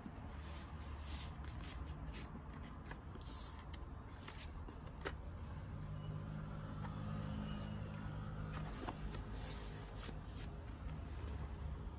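Cardboard record sleeve and glossy paper lyric insert being handled: rustling, sliding and small taps as pages are turned and folded, over a low steady rumble.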